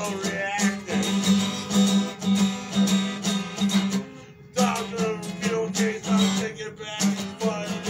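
Acoustic guitar strummed in a steady rhythm, with a short break about four seconds in.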